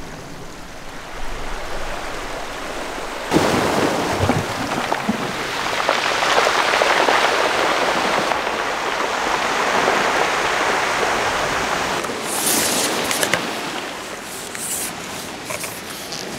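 Sea waves washing onto a shingle beach. The surge swells and fades, then turns to a crackling rattle of pebbles near the end.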